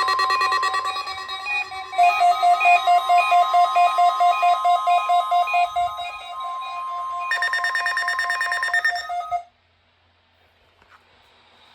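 NOAA Weather Radio 1050 Hz warning alarm tone sent as part of the weekly test, a steady high tone, with an electronic alert beeping rapidly over it, about four to five beeps a second. Both cut off together about nine seconds in.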